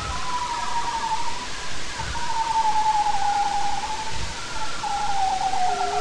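Bearded seal trilling underwater: a long warbling trill that slowly falls in pitch and ends in a quick downward sweep near the end, over a steady hiss of sea noise.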